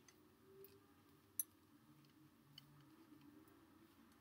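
Near silence broken by a few faint, irregular clicks, the sharpest about a second and a half in: fingers and fingernails handling a microphone while fitting a foam windscreen over its head.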